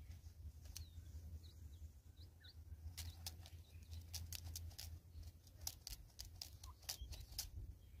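Sharp, quick clicks and taps of a Natal spurfowl's bill pecking seed from a cut plastic bottle feeder, coming thickest in the second half. A few faint high chirps sound among them, over a low steady rumble.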